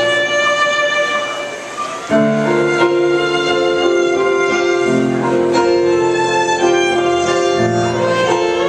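A band playing live: long held melodic notes over a low bass line that changes note every two to three seconds. The music dips slightly, then comes back in fuller about two seconds in.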